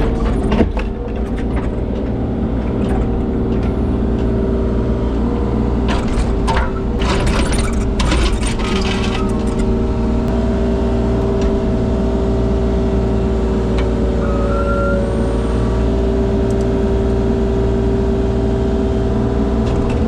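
A compact diesel digging machine running steadily under load, with a held whine over the engine rumble. Concrete clatters and scrapes as the slab is broken up and pulled loose, loudest about six to nine seconds in.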